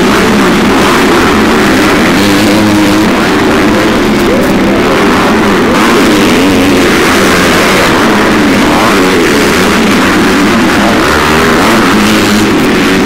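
Several motocross bike engines revving hard as the riders race round the dirt track. Their pitches overlap and keep rising and falling without a break.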